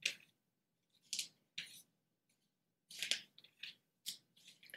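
Thin Bible pages being leafed through by hand, a series of brief, faint paper rustles and swishes.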